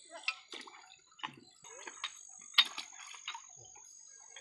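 Water splashing and dripping with a handful of sharp clicks and knocks, the loudest about two and a half seconds in, as hands work at a water pump's flanged metal casing standing in shallow water.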